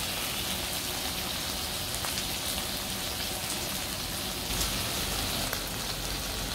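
Pork belly and kimchi sizzling on a stone-coated griddle: a steady crackling hiss with many small pops of spitting fat.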